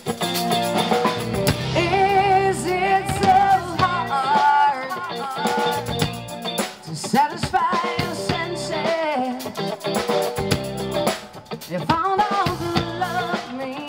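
Live rock band playing: a woman sings lead, holding wavering notes, over electric guitar, bass guitar and a drum kit.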